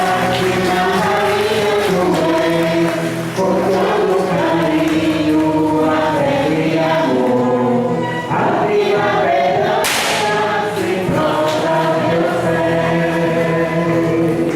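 Choir singing a religious hymn over a steady low accompaniment. There is one brief sharp noise about ten seconds in.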